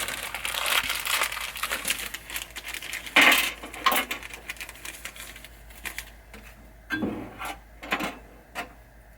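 Close-up handling of small metal parts and wiring: a run of light clinks and crinkly rustling, a sharper knock about three seconds in, and a few scattered clicks later.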